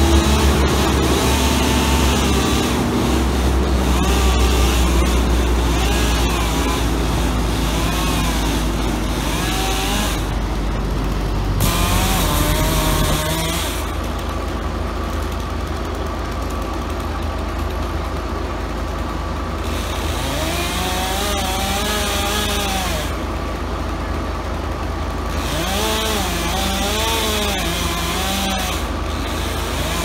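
Chainsaw cutting through a tree trunk, its pitch rising and falling again and again as the throttle opens and the chain bites into the wood.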